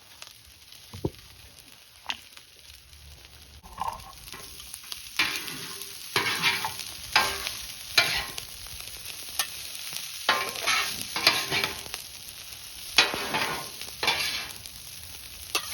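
Food sizzling on a hot grill while a spatula scrapes and stirs it; the scraping strokes come quickly and irregularly from about four seconds in, over a steady sizzle.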